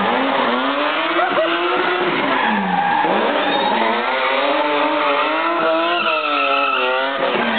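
Engine of a BMW E30 with an M5 engine swap, revved up and down again and again while the car drifts, with its tyres squealing as they slide.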